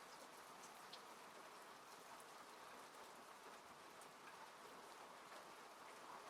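Soft, steady rain falling on a car, heard from inside, with scattered light drop ticks.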